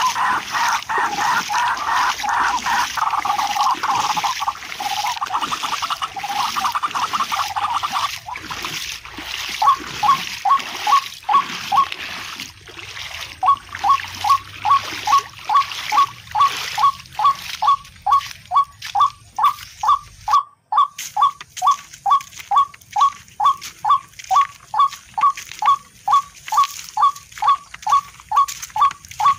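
Rail (tikling) calls: a short clipped note repeated evenly about twice a second through the second half, after a faster run of notes over a hiss in the first few seconds.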